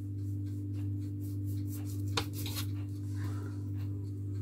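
Knife sawing through a rolled log of puff pastry dough on a marble worktop: soft rubbing strokes with one sharper tap about two seconds in, over a steady low hum.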